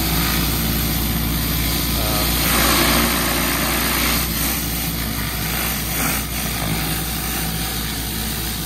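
Pressure washer surface cleaner running over concrete: a steady hiss of high-pressure spray from its spinning bar, over the low, even hum of the pressure washer engine.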